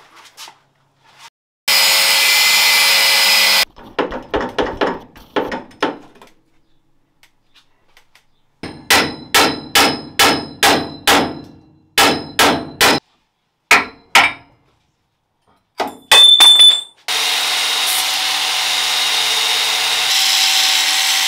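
Steel tube-chassis fabrication: a short burst of a power grinder, then runs of hammer blows on steel tubing, at about two to three a second in the longest run. Near the end the grinder runs steadily, throwing sparks as it cuts through tack welds to free a hydraulic bump stop mount.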